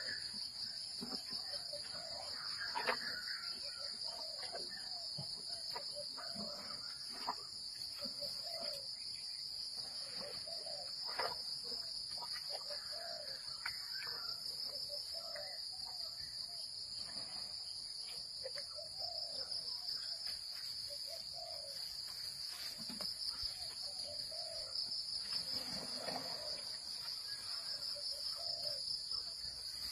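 Steady, high-pitched drone of a jungle insect chorus, with scattered short clicks and rustles beneath it.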